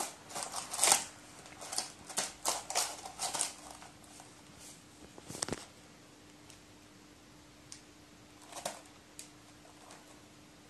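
A crow pecking and tearing at crumpled paper balloon scraps in a plastic cup: a quick run of crinkling, rustling rasps for the first few seconds, then a few scattered taps.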